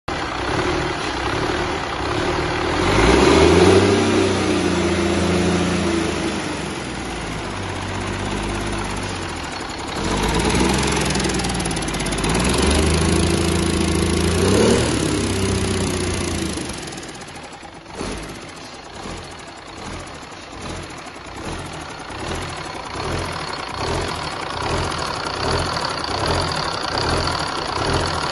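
Cummins LTA10 STC inline-six turbocharged diesel engine running on a test stand. It is revved up twice, each time settling back, and then idles steadily with an even pulsing beat.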